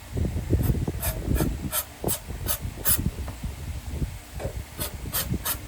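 Aerosol carburetor cleaner sprayed in short bursts, about nine quick hissing squirts in two groups, over light handling knocks from the generator parts.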